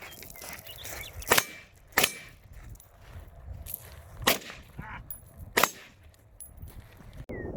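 AR-15 rifle (5.56/.223) firing four sharp shots: a quick pair about a second and a half in, then two more about a second and a half apart past the middle.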